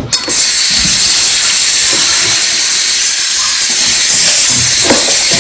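A loud, steady hiss that starts suddenly just after the start and holds level throughout.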